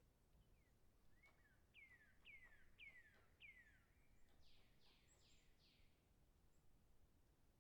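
Faint, distant bird calls: a series of four clear whistled notes, each falling in pitch, followed at once by four higher, quicker notes, with a few faint ticks between them.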